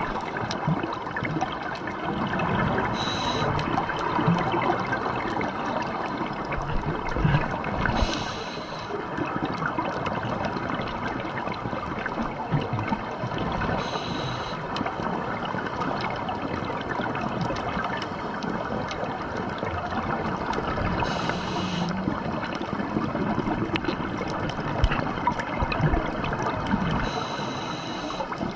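Scuba diver breathing through a regulator underwater: a short hiss with a thin whistle on each breath, five times about every five or six seconds, with the bubbling and gurgling of exhaled air in between.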